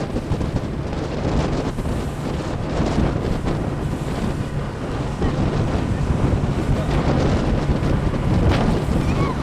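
Wind buffeting the microphone over the steady drone of a boat's motor and water rushing past the hull as the skiff runs at speed.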